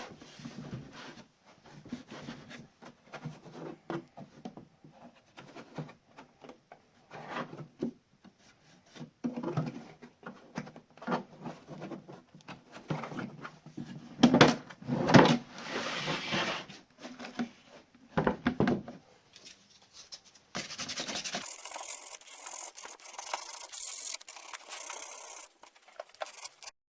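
Hand tool scraping and rubbing on wood in irregular strokes, loudest about halfway through. A steadier hiss follows for several seconds near the end.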